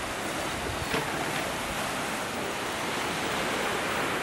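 Steady, even wash of wind and gentle surf along a sandy shoreline.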